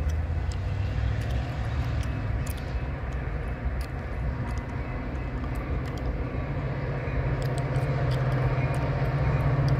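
Approaching Metra commuter train: a low rumble that grows steadily louder as it nears, with scattered faint high ticks.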